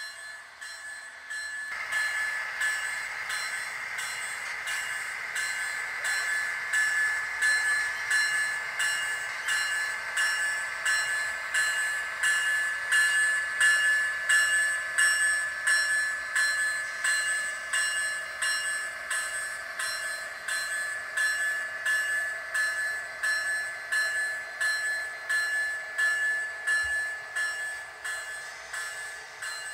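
Model freight train rolling steadily along a layout's track, its cars' wheels clicking over the rail joints about one and a half times a second over a steady high-pitched whine.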